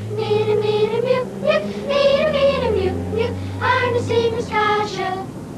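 Children singing a song together in unison, the melody rising and falling in held notes.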